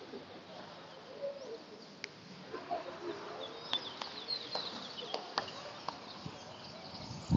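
Ducks and geese calling softly, in short low gliding calls, with a flurry of higher chirping from other birds around the middle and a few sharp clicks scattered through.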